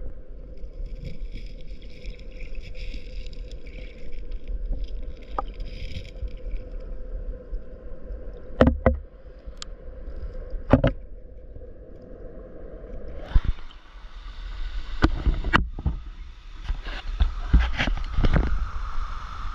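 Stream water heard from underwater through a GoPro's waterproof housing, a muffled low rumble with a few sharp knocks. About 13 seconds in the camera comes out of the water, and the open rushing of a small cascade over rocks takes over, with more knocks.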